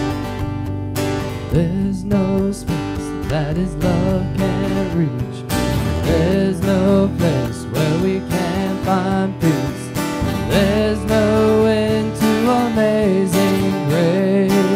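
Acoustic guitar strummed steadily, with a singing voice carrying a wavering melody over it from about a second and a half in.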